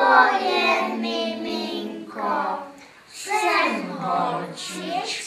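A group of young children singing a song together in unison, with a short pause between phrases about three seconds in.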